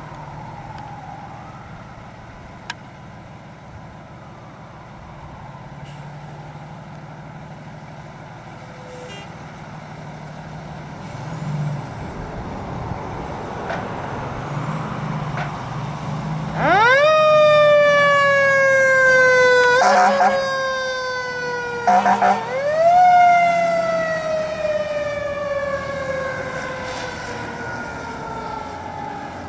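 E-One fire engine pulling out on a call: its diesel engine runs with a low rumble that grows louder as it leaves the station. Then the siren winds up sharply and winds down slowly, two short horn blasts sound, and the siren winds up once more and slowly runs down as the truck drives away.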